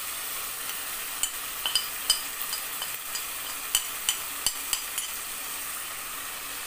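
Chicken masala frying in oil in a wok, a steady sizzle. From about a second in until about five seconds, there is a run of short light clicks as a spoon scrapes nigella seeds (kalonji) off a ceramic plate into the pan.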